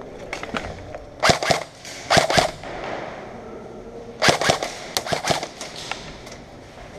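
Airsoft guns firing short bursts of rapid shots: a quick burst a little over a second in, another at about two seconds, and a longer string of shots from about four seconds in.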